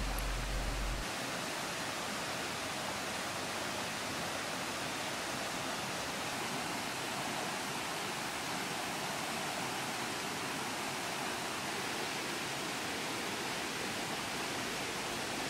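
Steady, even rushing noise with nothing standing out of it; a low hum underneath stops about a second in.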